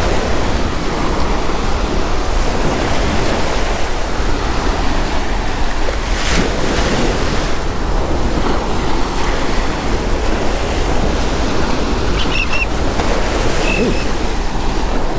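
Surf breaking on a beach in rough conditions, a steady wash of noise, with wind rumbling on the microphone. Near the end a bird gives a few short, high calls.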